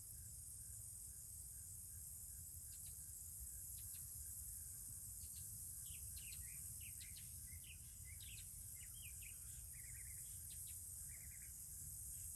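Small birds chirping in short, quick calls for several seconds, over a steady high-pitched insect chorus and a low, constant rumble.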